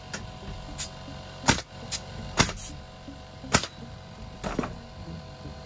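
Pneumatic nail gun firing about eight shots at irregular intervals, some in quick pairs, driving nails into stacked 2x3 lumber to fasten it into a solid beam.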